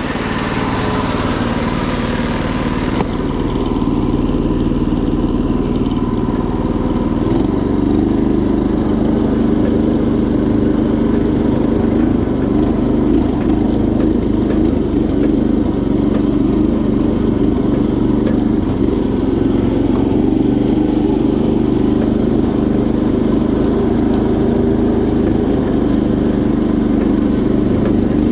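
Predator 212 single-cylinder four-stroke engine on a Craftsman GT5000 garden tractor running steadily under load while driving. Its note firms up and gets slightly louder about seven seconds in.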